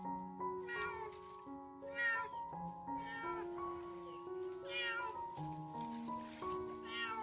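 A domestic cat meowing repeatedly, about five short calls a second or two apart, while it is held and bathed in a basin of water. Background music with long held notes plays under it.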